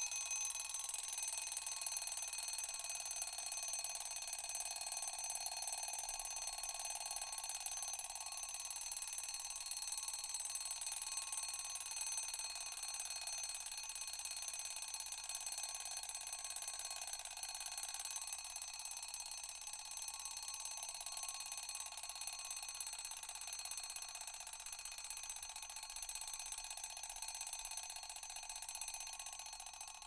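A mechanical clock's alarm bell ringing without a break, a bright metallic ring with many high overtones. It dies down near the end.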